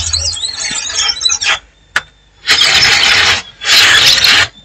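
Brush scrubbing a phone's plastic housing, rough and scratchy with thin squeaks, stopping about a second and a half in. After a short pause come two separate hissing bursts, each about a second long.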